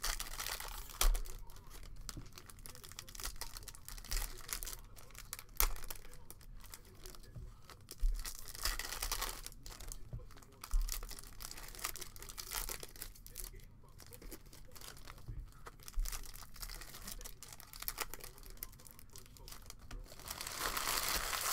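Hands tearing open and crinkling the foil wrapper of a Bowman Chrome trading-card pack, then handling and shuffling the cards. Irregular rustles with scattered sharp clicks, louder near the end.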